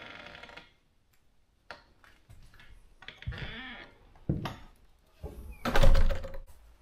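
Background music fades out at the start. Then come scattered knocks and thumps from handling things and moving about on a wooden cabin floor, with the loudest and longest clatter about five to six seconds in.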